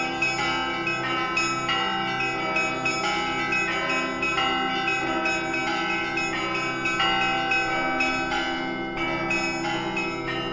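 Russian Orthodox church bell ringing (zvon): a belfry of bells rung by hand, the small high bells struck in quick, dense succession over the steady ringing of the large, deep bells.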